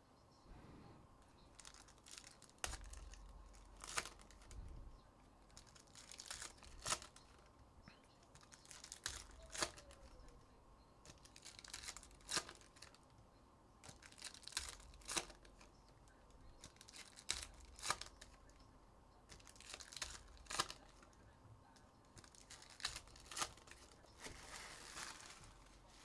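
Trading card packs of 2023 Upper Deck Goodwin Champions being torn open, the wrappers crinkling, with sharp snaps about every two to three seconds.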